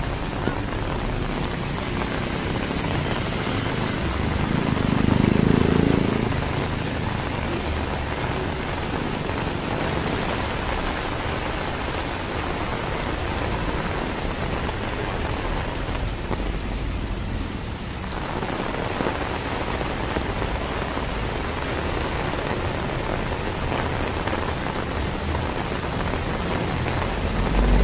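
Heavy rain falling steadily, an even hiss of rain hitting the ground. A louder low rumble swells and fades about five seconds in.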